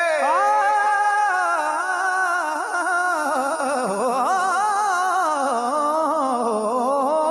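Qawwali music: a male voice sings a wordless, melismatic passage whose pitch slides and wavers, over a harmonium holding notes, with no drum strokes.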